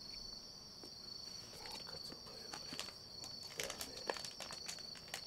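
A steady high-pitched insect trill, with scattered light taps and clicks over it.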